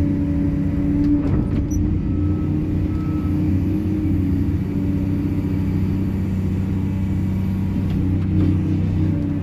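Excavator's diesel engine running steadily, with a few short clicks or knocks a second or so in and again near the end.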